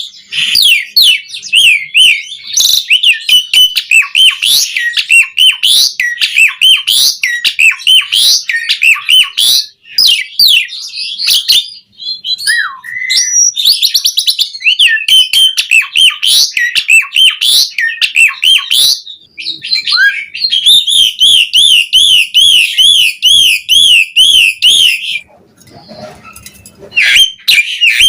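Asian pied starling (jalak suren) singing a loud, fast, varied song of chirps, whistles and squeaky sweeping notes. About two-thirds of the way through it repeats one quick warbled note over and over for several seconds, then breaks off briefly near the end before resuming.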